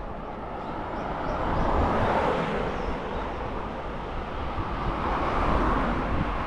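Wind and road noise picked up by a helmet or bike-mounted action camera while riding a bicycle, a steady rush with a low rumble that swells about two seconds in and again around five and a half seconds in. Faint regular ticking is heard in the first second or so.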